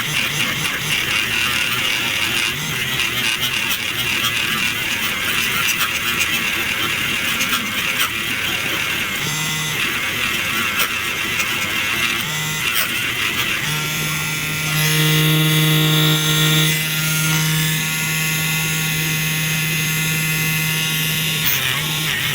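A small electric motor whirs twice briefly, then runs steadily for about eight seconds with an even hum, over a constant hiss.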